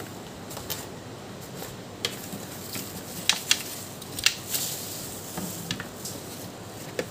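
Clear plastic bag crinkling as a laptop cooling pad is slid out of it, a few sharp crackles and light knocks of handling over a low steady background.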